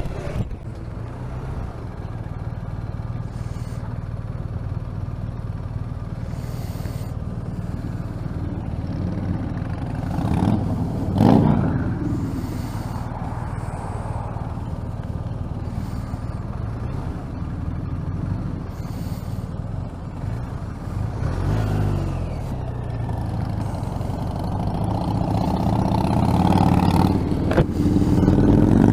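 BMW R 1250 RT's boxer-twin engine running steadily under way, with wind and road noise. There is a brief louder swell about eleven seconds in, and the engine note climbs and grows louder near the end as the bike accelerates.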